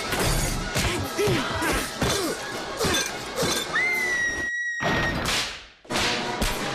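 Trailer soundtrack of music cut with a quick run of hits and crashes. Near the middle a woman gives a high scream held for about a second, followed by a whoosh and a brief drop almost to silence before the hits pick up again.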